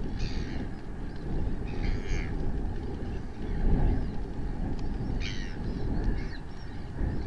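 Wind buffeting the microphone with a steady low rumble, and short bird calls from other birds three times: near the start, about two seconds in, and about five seconds in.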